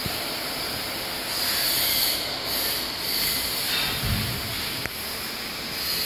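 Nose-wire extrusion line machinery running with a steady hiss, with a short low thump about four seconds in.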